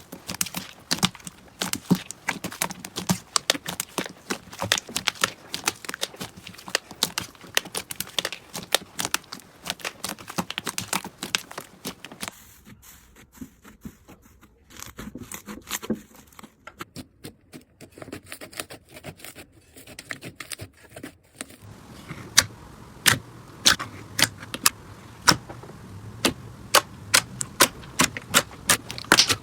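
Slime being squeezed and poked by hand: dense wet crackling and small pops, a quieter stretch in the middle, then from about three-quarters of the way in a run of sharp clicks, a few a second.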